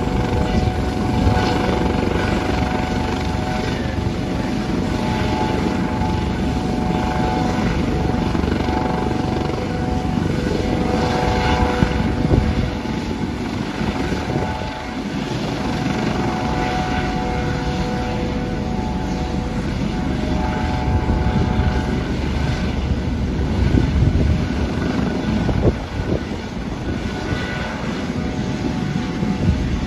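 US Coast Guard MH-65 Dolphin helicopters running on the ramp: a loud, steady whine from their twin turboshaft engines and rotors over a dense rumble, with the pitched tones fading in and out as the helicopters move.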